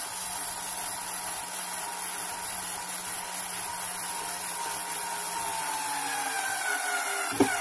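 Small cordless screwdriver running steadily, driving a short screw up into a melamine-covered particle-board shelf; its whine slowly drops in pitch, with a sharp click near the end.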